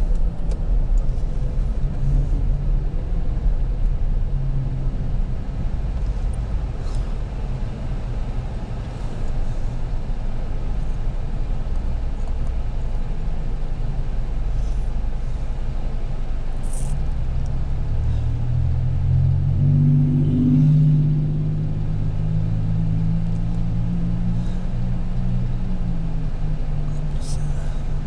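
Inside a Ford SUV: low road and engine rumble as it rolls to a stop, then the engine idling. About two-thirds through, a deeper engine drone swells and carries on.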